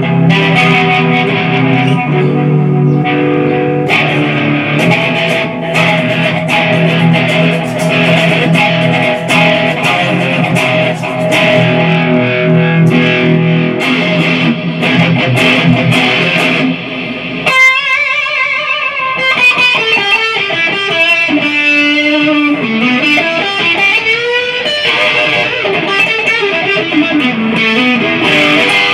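Modified Kazuki Baby 1 mini electric guitar played through an amp: sustained chords over a low bass line for the first two-thirds, then the low end drops out suddenly and it changes to a higher single-note lead line with bends and vibrato.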